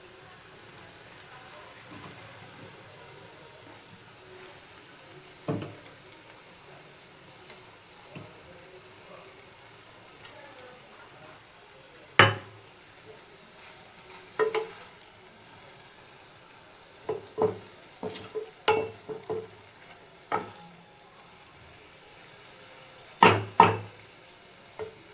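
Tangra fish masala sizzling gently in a pan, with a utensil knocking against the pan every few seconds as it is stirred. The loudest knock comes about halfway, and two sharp ones close together come near the end.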